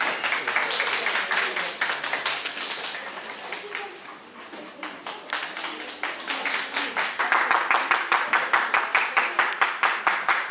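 Onlookers clapping, settling from about seven seconds in into steady rhythmic clapping of about five claps a second.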